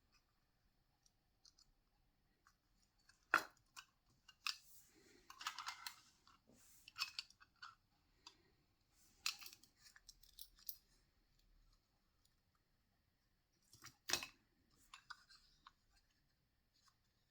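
Hands opening and handling small plastic packaging: soft crinkling and rustling with scattered clicks, the two sharpest about three and a half seconds in and near fourteen seconds.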